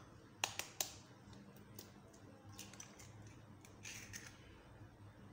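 An egg tapped three quick times against a metal fork to crack its shell, followed by faint crackles as the shell is pulled apart and the egg drops into the bowl.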